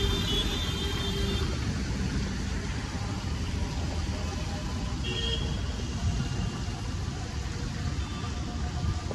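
Steady rumble of city road traffic, with short high-pitched tones near the start and again about five seconds in.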